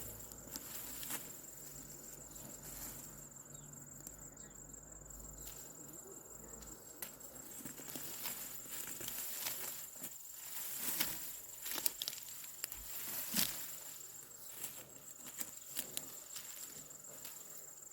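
Rice stalks being cut and handled by hand: rustling with scattered sharp snaps, the loudest about thirteen seconds in, over a steady high-pitched whine.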